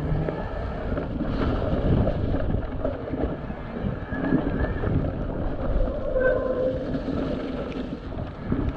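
Electric mountain bike ridden along a wet, muddy, leaf-covered trail: knobbly tyres rolling through mud and leaves with the bike rattling over the bumps, and wind rushing over the camera microphone.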